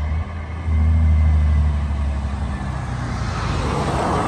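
Peterbilt big-rig RV's diesel engine running as the truck approaches, a low rumble that is loudest about a second in, with tyre and road noise swelling near the end as it draws closer.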